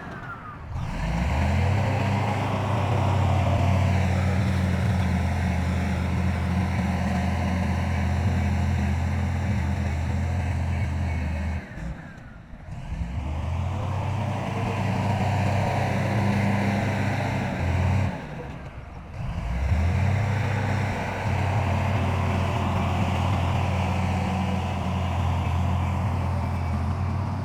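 Heavy diesel engine of earthmoving machinery running steadily under load, breaking off briefly about 12 and 19 seconds in.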